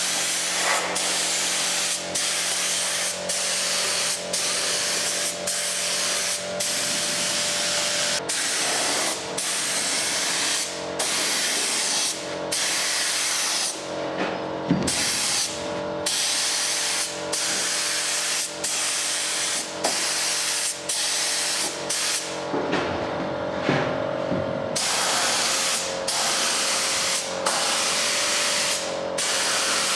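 Cup-fed compressed-air spray gun spraying two-pack primer: a steady hiss broken about once a second by short gaps as the trigger is released and pulled again, with two longer pauses, one midway and one near the three-quarter mark. A steady low hum runs beneath.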